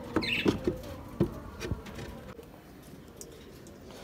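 A few light knocks and clatters in the first two seconds, with a short high chirp near the start, then only a faint background.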